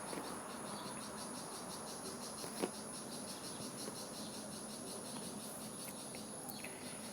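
Crickets chirping faintly, a steady, fast, evenly pulsing high-pitched trill, with one soft click about two and a half seconds in.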